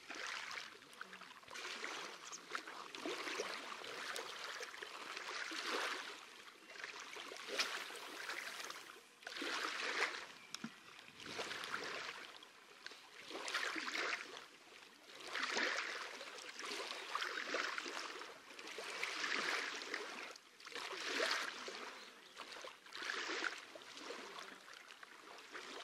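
Small waves lapping and washing onto a pebbly shore, each wash swelling and fading about every two seconds.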